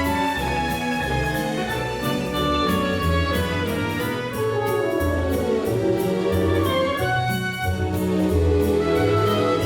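Upbeat orchestral advert music with brass and a steady beat.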